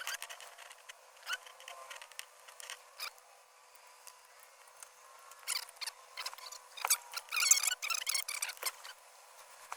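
Scattered clicks and light rattles of plastic wiring-harness connectors and wires being handled and plugged together, with a denser crackling rustle about seven seconds in. The sound is thin, with no low end.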